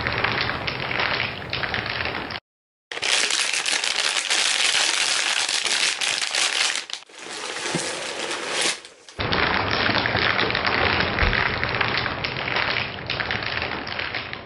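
Dense crackling and crunching made up of countless tiny clicks, in three stretches split by short breaks about two and a half seconds in and about nine seconds in: a homemade foley sound effect.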